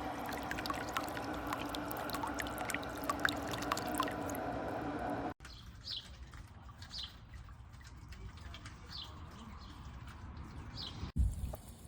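Solar fountain pump spraying into a bird bath, water splashing and dripping steadily for about five seconds. After a sudden cut it is quieter, with a bird chirping about five times over trickling water, and a brief thump near the end.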